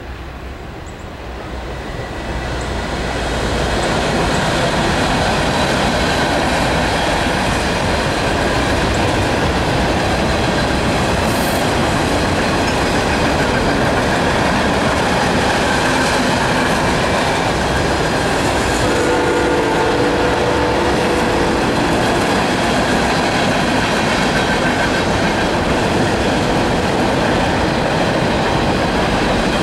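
Freight train cars rolling past: a steady rumble and clatter of wheels on rail that swells over the first few seconds. About two-thirds of the way through, a train horn chord sounds for a couple of seconds over it.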